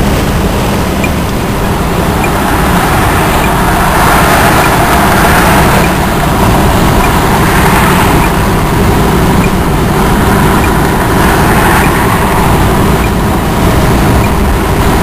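Steady road noise of a car cruising at freeway speed, heard from inside the cabin. It gets a little louder about four seconds in.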